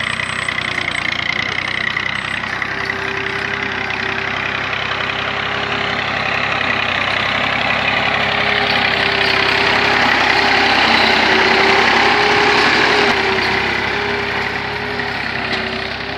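Massey Ferguson tractor's diesel engine running steadily as it pulls a mounted tine tiller through dry soil. It grows louder as the tractor draws near, is loudest as it passes close about three-quarters of the way through, then fades.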